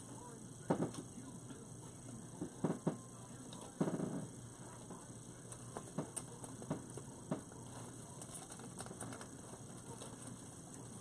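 Scattered clicks and crackles, with a short rustle about four seconds in, from a dry grapevine wreath being handled as a sign is fastened to it with pipe cleaners twisted through the vines.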